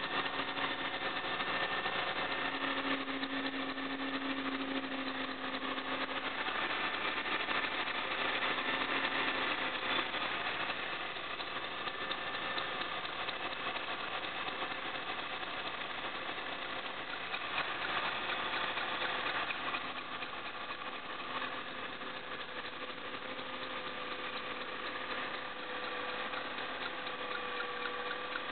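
Mercedes-Benz C 180 Kompressor (W203) supercharged four-cylinder engine idling with a steady, thin squeak over the running engine.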